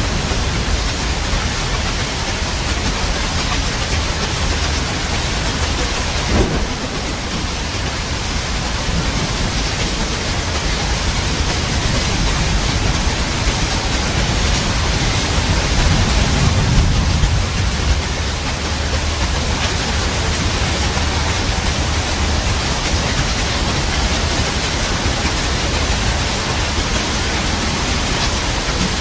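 Steady heavy rainfall, an even dense hiss, with thunder: a short crack about six seconds in and a low rumble swelling and fading again past the middle.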